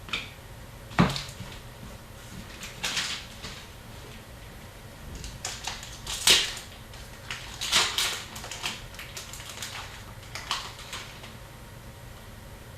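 Upper Deck hockey trading cards and packs handled at a table: scattered sharp clicks and short rustling slides, one sharp click about a second in and clusters of rustles around three, six and eight seconds.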